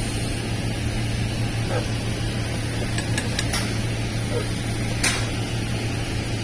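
Electric welding arc burning steadily: a continuous hiss over a low hum, with a few sharp ticks about three and five seconds in.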